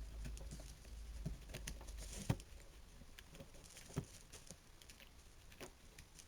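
Small clicks, taps and knocks of drill parts being handled and fitted together during reassembly, with two sharper knocks about two and four seconds in.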